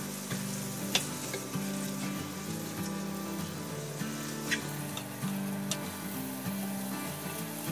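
Diced raw chicken sizzling in oil and butter in a frying pan while a plastic slotted spatula stirs it, clicking against the pan three times. Background music plays underneath.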